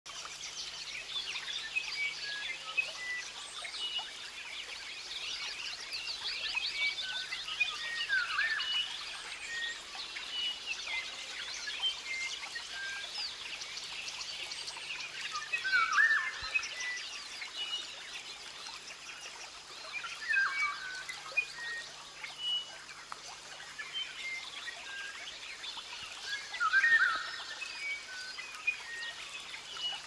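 Many birds calling together in tropical rainforest, a dense mix of short chirps and whistles. Louder swooping calls stand out several times.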